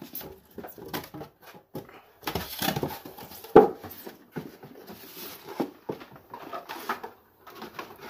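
Handling noise from a Paloma PH-5RX gas water heater being turned over in the hands: rustling and scraping of its casing with small knocks, and one sharp knock about three and a half seconds in.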